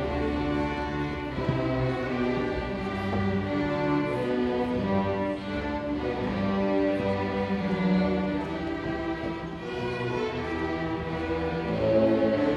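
Student string orchestra playing: bowed violins with cello and double bass, in long held notes.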